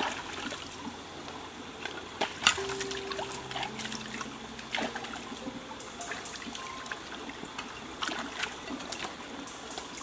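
Water trickling steadily, with scattered sharp clicks.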